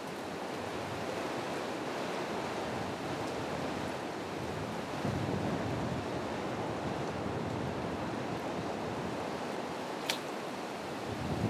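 Steady wash of wind and distant ocean surf, with one sharp click about ten seconds in.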